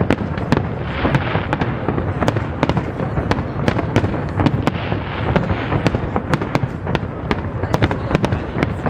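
Aerial fireworks shells bursting in rapid succession: many sharp bangs over a continuous low rumble, with bursts of crackle about a second in and again around five seconds.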